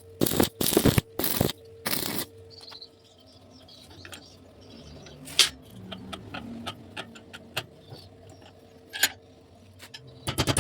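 Short bursts of welding-arc crackle, four or five in the first two seconds like quick tack welds, then scattered light clicks and taps of metal parts being handled. A fast, evenly pulsing crackle starts right at the end.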